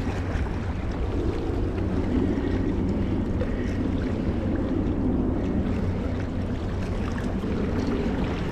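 Steady seaside rumble of wind and sea water at a rocky shore, unbroken and even in level.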